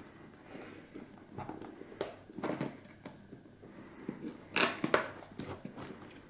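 Adhesive seal sticker being peeled off a cardboard camera box, with fingers scratching and rustling on the cardboard in short irregular scrapes; the loudest rasp comes about four and a half seconds in.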